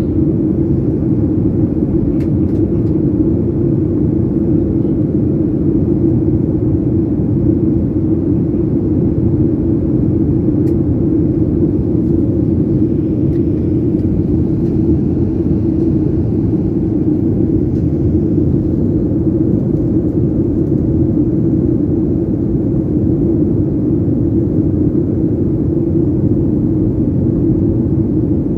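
Cabin noise inside a GOL Boeing 737 airliner in cruise: a loud, steady drone of the jet engines and rushing air with a constant deep hum.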